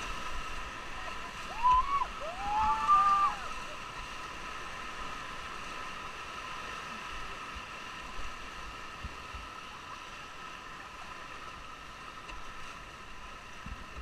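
Whitewater rushing and churning steadily around an inflatable raft running river rapids. Near the start, two brief high cries, the loudest sounds, rise and fall over the water.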